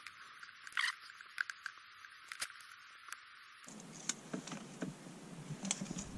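Faint handling sounds of red plastic backing film being peeled off adhesive pads on a number plate: light crinkles and small clicks, with one sharper tick about two and a half seconds in.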